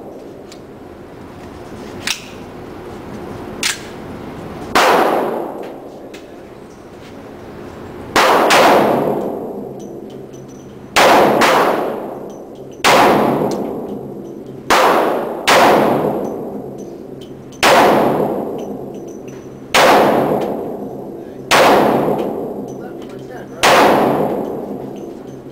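About ten gunshots spaced one to three seconds apart, each sharp crack trailing off in a long ringing echo. Two faint clicks come first, in the opening seconds.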